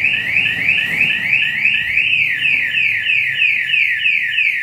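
Motorcycle anti-theft alarm siren wailing loudly in quick repeating pitch sweeps, several a second. It is set off by an attempt to start the bike while the tracker's electronic lock is on.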